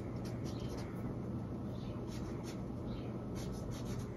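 Felt-tip blendable marker rubbing and scratching on slick paper in short, irregular strokes as an area is coloured in, over a steady low hum.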